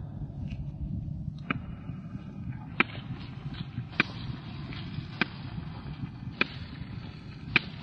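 Sharp taps at an even walking pace, about one every second and a quarter, from someone walking on a hard surface, over a low steady outdoor rumble.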